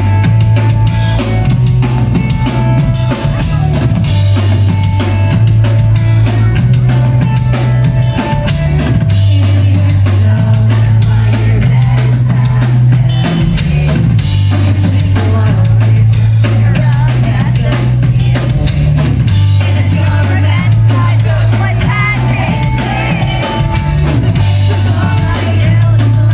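Rock band playing live at full volume: a drum kit hitting steadily over a bass line that steps between a few low notes, with guitars above.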